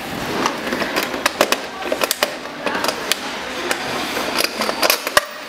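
Irregular clicks and knocks of hands and a screwdriver working on the hard plastic chassis and motor gearbox of a kids' electric ride-on dune buggy.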